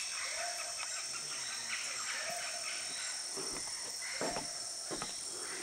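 Steady, high-pitched chorus of rainforest insects, with a short lower animal call repeating about every two seconds. A few knocks and bumps come in the last couple of seconds.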